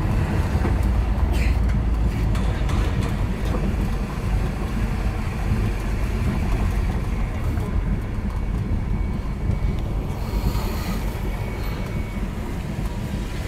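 Mercedes-Benz R107 500SLC AMG's V8 running at low revs as the car drives slowly, heard from inside the cabin as a steady low-pitched drone mixed with road noise.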